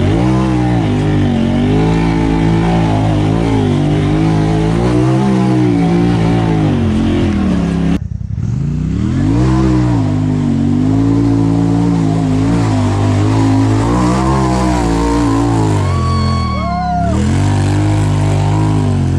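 Polaris RZR side-by-side's engine revving hard under load, its pitch surging up and down repeatedly as the throttle is worked on a steep, loose hill climb. The sound breaks off briefly about eight seconds in, then the revving picks up again.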